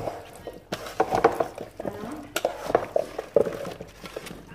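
Raw meat and chunks of potato and carrot being mixed by hand in a stainless steel pot, with irregular knocks and clicks as the pieces hit the metal.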